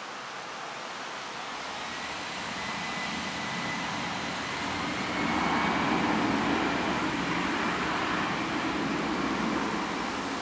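Airbus A320 jet engines at takeoff power as the airliner rolls down a wet runway: a broad rushing noise with a faint whine rising in pitch, swelling about five seconds in as it passes.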